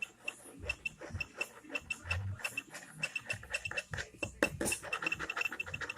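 Rapid light ticking of a butter knife being waved past and flicking at the tip of a crankshaft position sensor, with a small high chirp on each tick. It comes faster from about halfway in.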